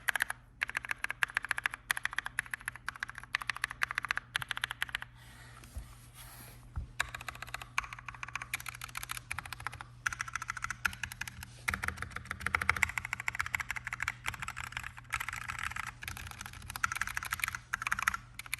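Fast typing on a mechanical keyboard with Kailh Silver Speed linear switches, some lubed and some not, giving rapid runs of key clicks. The typing pauses briefly about five seconds in, then resumes.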